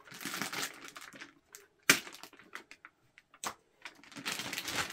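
Protective plastic wrapping being cut and torn open, crinkling, with a sharp crack about two seconds in and a second, smaller one about a second and a half later.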